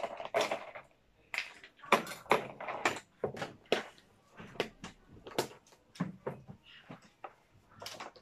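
Plastic milk tea cup and lid being handled and fitted, giving a string of irregular sharp clicks and knocks.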